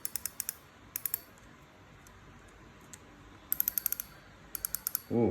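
Clicker of a Shimano Catana C3000HG spinning reel clicking in several short bursts of rapid ticks, slightly shrill.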